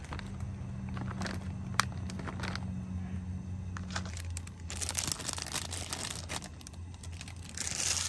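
Food being added to a steaming clay hot pot on a portable gas burner. A few soft clicks and knocks come in the first few seconds, then rustling and crinkling from about the middle onward as beech mushrooms go in. A steady low hum runs underneath.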